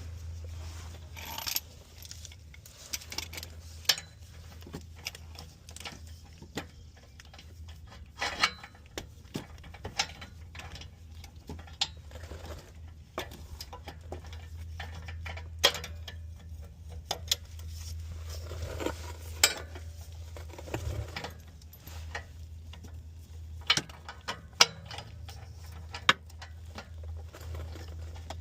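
Metal hand tools clinking and knocking at irregular intervals, with sharp metallic clicks, as a wrench and breaker bar are worked on a stuck oxygen sensor, over a steady low hum.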